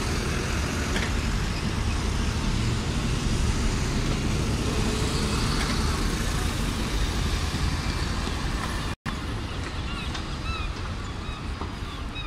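Double-decker city buses passing close by, engines running with tyre and road noise, over steady street traffic. The sound drops out for an instant about nine seconds in.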